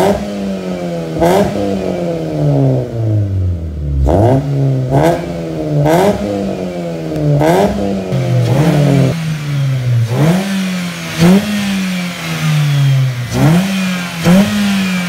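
Mitsubishi Lancer's four-cylinder engine revved repeatedly through an aftermarket full exhaust system with dual exits. Each throttle blip rises sharply in pitch and falls back; there is one long slow fall over the first few seconds, then quicker blips about once a second.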